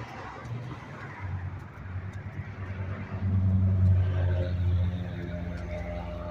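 A road vehicle passing close by: a low engine rumble that builds, is loudest about halfway through, then fades away over steady traffic noise.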